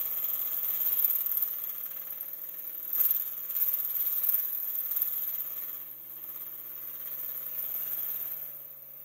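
Nissan Titan's VK56DE 5.6-litre V8 running at a steady low speed, without revving, heard from under the chassis by the rear axle, with a brief rattling knock about three seconds in. A steady high-pitched whine sits over it.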